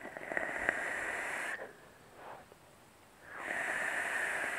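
Two draws on a Kennedy-clone rebuildable dripping atomizer with a 0.8-ohm kanthal coil, each about one and a half seconds: air hissing through the airflow holes with a steady whistle while the coil fires and sizzles. The first draw has a few crackles.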